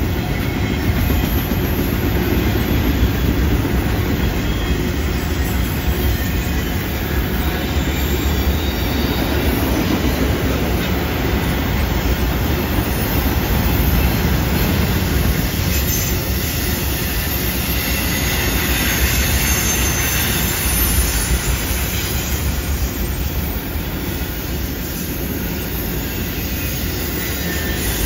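Autorack cars of a long freight train rolling steadily past, a continuous rumble of steel wheels on the rails. Faint high-pitched wheel squeal comes and goes as the cars take the curve.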